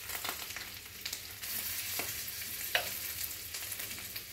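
Thick-sliced bacon frying in a skillet: a steady sizzle with occasional sharp pops and crackles from the fat.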